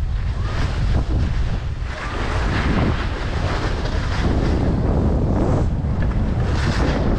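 Wind buffeting the camera microphone as a skier runs downhill at speed, with the hiss and scrape of skis on packed snow swelling and fading every second or two.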